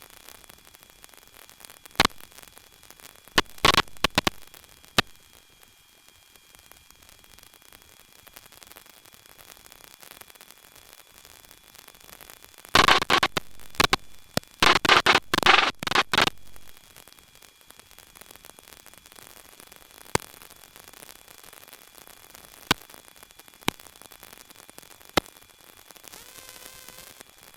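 Aviation radio and intercom static: a steady hiss with a faint high whine, broken by sharp clicks and, about halfway through, a few seconds of loud crackling bursts, typical of squelch breaks and mic keying on the frequency.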